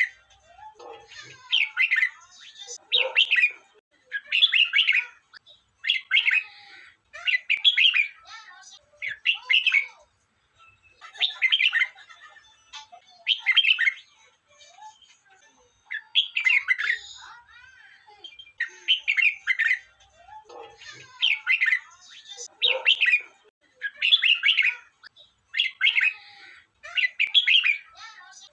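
Red-whiskered bulbul singing: short, bright warbled phrases repeated one after another, about one every second and a half, with brief pauses between them.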